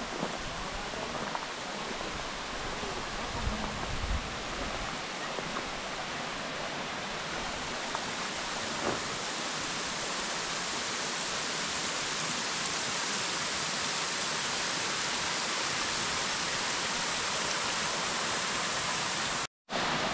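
Waterfall rushing steadily, a dense even roar of falling water that grows brighter and a little louder after about seven seconds. A few low bumps sound in the first seconds, and the sound cuts out abruptly for a moment near the end.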